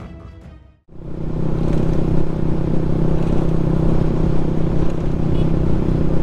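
Intro music fading out, then about a second in a Suzuki Raider Fi 150 motorcycle's single-cylinder engine starts up in the recording, running at a steady cruise.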